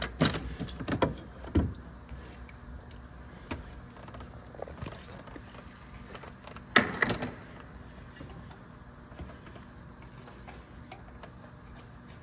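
Metal hand tools clinking, a socket and ratchet being handled on the engine. There are a few sharp clicks in the first two seconds and a louder clatter about seven seconds in, then only faint scattered ticks.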